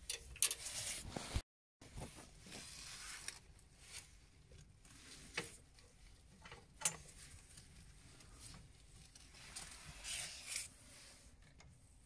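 Quiet handling sounds of gloved hands working the plastic clips and fittings of a combi boiler's hydraulic block to take out a water filter: scattered rustles and a few sharp clicks.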